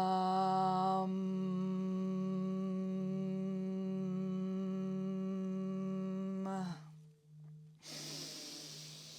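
A woman's voice holds the closing "mmm" of the chanted seed syllable "VAM" on one steady pitch, then stops with a slight downward slide about two-thirds of the way in, followed by an audible in-breath. Under the voice a Tibetan singing bowl tuned to D keeps ringing, with a slow wobbling beat.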